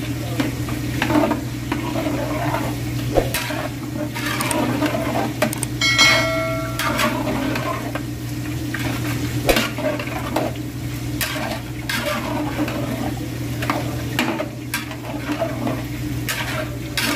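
A long steel ladle stirring soaked lentils and chickpeas through frying masala in a large aluminium pot, scraping and knocking against the pot's sides over a low sizzle and a steady low hum. A brief ringing tone sounds about six seconds in.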